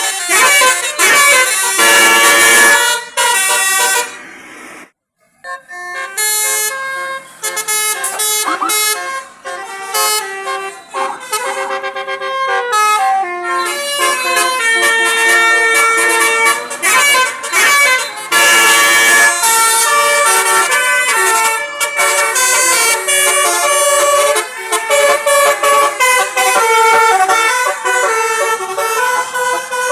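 Basuri tour bus's multi-tone 'telolet' air horn playing a tune: several horn tones sounding together and changing pitch in quick steps, with a short break about four seconds in before the horn resumes.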